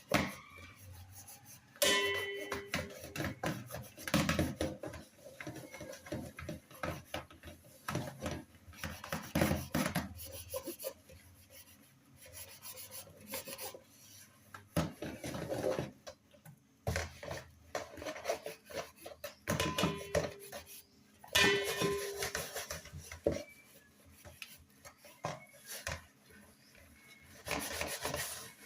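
Metal pots, plates and cutlery clattering and scraping, with rubbing strokes. A couple of clanks ring briefly, near the start and again about two-thirds of the way through.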